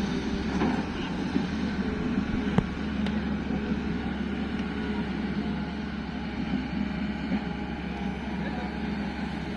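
Diesel engine of a Tata Hitachi EX 215 super long reach excavator running steadily with a low hum, with a single sharp click about two and a half seconds in.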